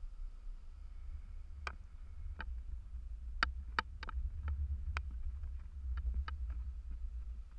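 Low wind rumble buffeting a handheld camera's microphone, with about a dozen sharp, irregular clicks through the middle, the kind made by handling the camera on its selfie pole.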